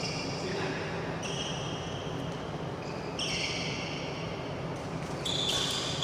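Badminton doubles rally: sharp racket strikes on the shuttlecock and footwork on the court mat, with high squeaks from court shoes coming in and out every second or two over a steady hum.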